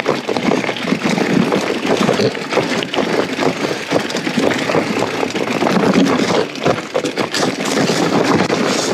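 Giant Trance 2 mountain bike rolling down a rough, rocky dirt track: the tyres crunch over loose stones while the bike and its luggage jolt and rattle with constant small knocks and clatters. The jolts come through a camera worn in a chest harness.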